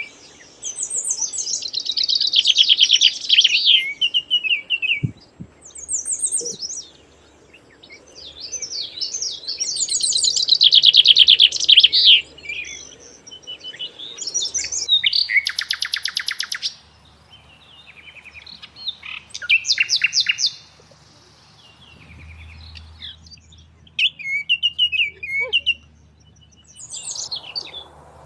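Songbirds singing: short, high twittering phrases a second or two long, repeated with pauses between them.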